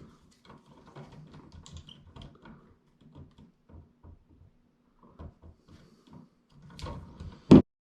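Hand tools working a light switch's wiring: scattered small clicks and scrapes as the wires are cut and redone, then one sharp, loud snip near the end.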